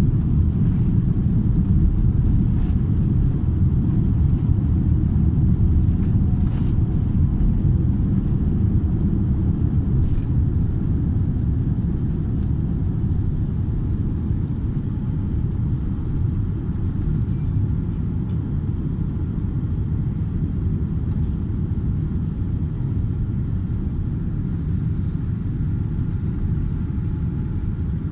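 Steady low rumble of a Boeing 787-10 airliner's engines and airflow, heard inside the cabin, easing off slightly partway through.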